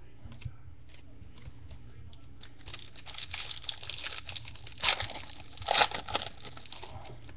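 Foil wrapper of a trading card pack crinkling as it is handled and torn open, with two louder crackles a few seconds in.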